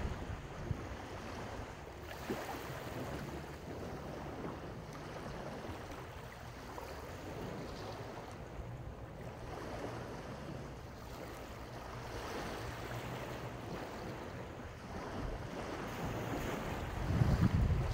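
Sea surf washing onto the beach, rising and falling every few seconds, with wind buffeting the microphone and a louder gust near the end. A low steady hum runs underneath.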